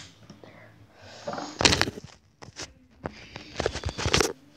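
Handling noise from a phone camera being picked up and moved: two bursts of rustling and scraping with short knocks, after a sharp click at the start.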